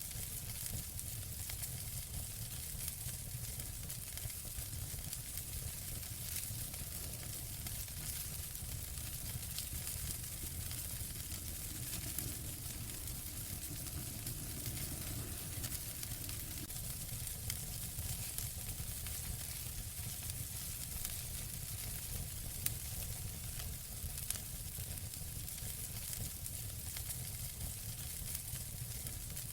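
Wood fire burning in a fireplace: a steady hiss over a low rumble, with frequent small crackles and a few louder pops.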